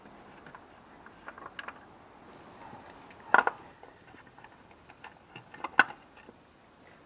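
Scattered light clicks and taps, with two louder clusters of sharp knocks about three and a half seconds in and again near six seconds: tools or parts being handled during an oil change.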